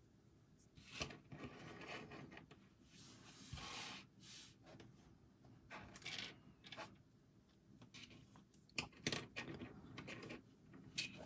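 Plastic LEGO pieces handled during assembly: scattered faint clicks and rattles of bricks, loudest around the middle and near the end, between short stretches of rustling.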